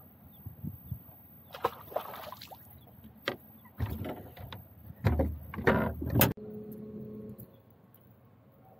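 A run of knocks, scuffs and splashes around the boat's bow while a small fish is brought in on the line, loudest about five to six seconds in. It cuts off suddenly, and a bow-mounted electric trolling motor hums steadily for about a second.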